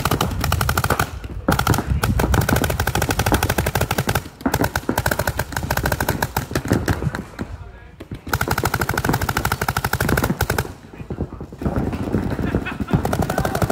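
Paintball gun firing rapid strings of shots, a fast even patter of pops broken by brief pauses about four times.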